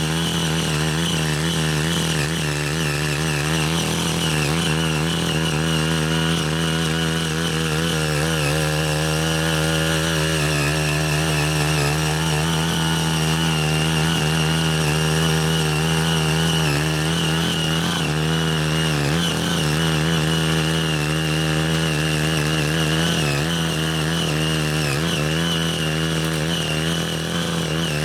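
5 HP engine of a CY80 mini rotary tiller running steadily under load as its six rotary blades till the soil. The engine note wavers slightly as the blades bite.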